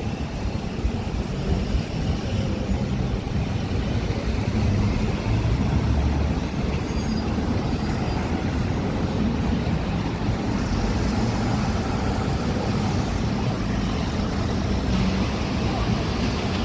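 Steady city street noise: road traffic with passing cars and heavier vehicles.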